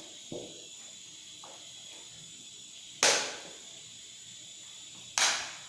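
White vinegar squirted from a squeeze bottle onto chopped eggplant and vegetables: two short hissing spurts about two seconds apart, each starting sharply and fading within half a second.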